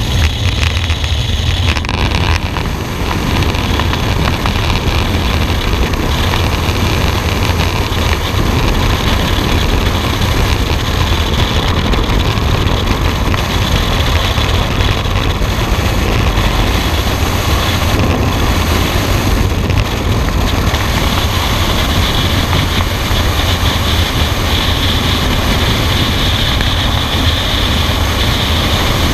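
Loud, steady rush of freefall wind on the camera microphone, strongest in the low end. It begins at the open door of the jump plane, where propeller wash and engine noise are also in the air stream, and shifts a little about two seconds in as the jumpers leave the aircraft.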